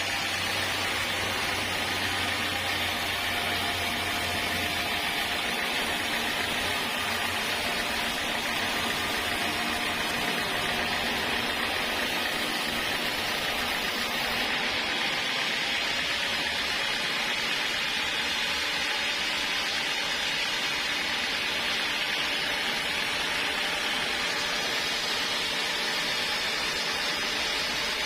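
Sawmill saw running steadily, a continuous even hiss with a low hum underneath that drops away about five seconds in.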